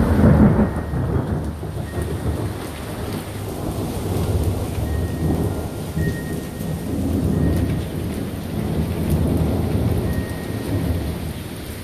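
Rolling thunder rumbling low and long after a lightning flash, loudest in the first second and swelling again several times, over steady rain.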